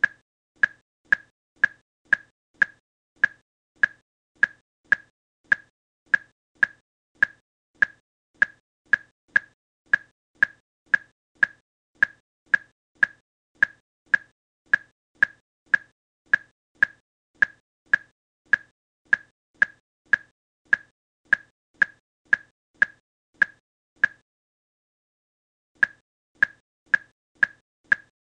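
Simulated patient monitor's heartbeat beep in the DART Sim app: a short, high, single-pitched beep repeating evenly about two and a half times a second, in step with the displayed heart rate of 150 beats a minute. The beeps stop for nearly two seconds near the end, then resume.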